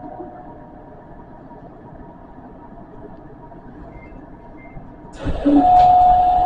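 Metro train standing at a station platform with a faint steady hum. About five seconds in, a sudden loud sound with a steady held tone starts.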